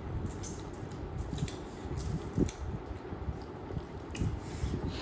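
Eating a duck-meat meal: chewing and handling food, with soft irregular clicks and rustles.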